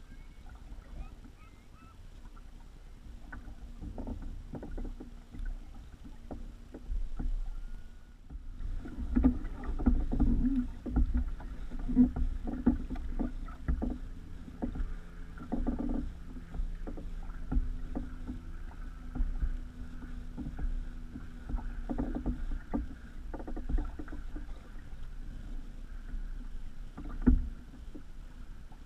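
Water sloshing and slapping against the hull of a Hobie Revolution 11 sailing kayak under way in light chop, with irregular knocks and thumps. It is quieter at first and grows louder from about eight seconds in, with one sharp thump near the end.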